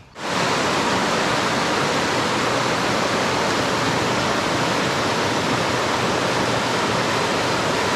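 Loud, steady rush of river water, starting abruptly at the very beginning and holding level without pause.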